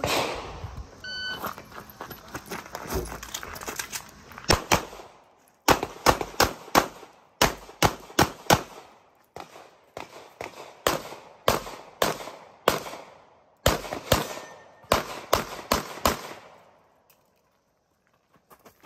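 A short electronic shot-timer beep about a second in, then a 9mm TISAS MAC 9 DS pistol firing many rapid shots, mostly in quick pairs, in strings with short pauses between them. The firing stops about two seconds before the end.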